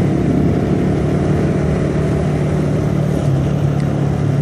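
Suzuki Satria FU carburettor model's 150 cc single-cylinder engine running steadily under way, its pitch easing slightly about three seconds in.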